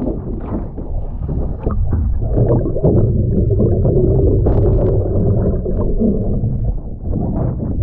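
Lake water sloshing and gurgling over a camera mounted on a capsized rowing scull, turning to a muffled underwater rumble once the camera goes below the surface about two seconds in.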